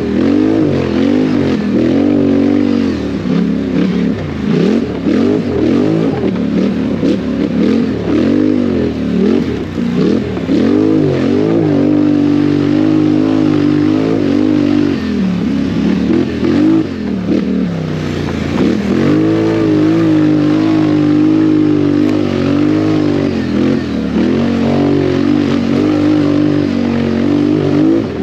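ATV engine under hard riding, its pitch rising and falling over and over as the throttle is opened and closed, with a longer steady high-revving stretch past the middle.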